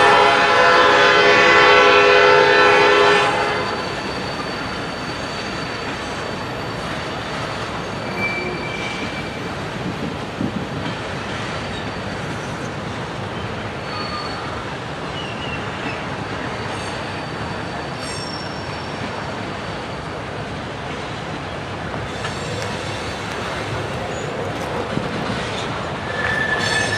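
A locomotive horn sounds, a chord of steady tones that cuts off about three and a half seconds in. Then a freight train of tank cars keeps rolling past, with short high wheel squeals now and then on the curve.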